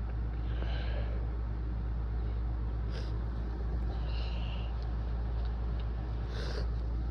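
Steady low background hum, with a few faint short breaths and sniffs from a man between wet sneezes; the one near the end is a little stronger.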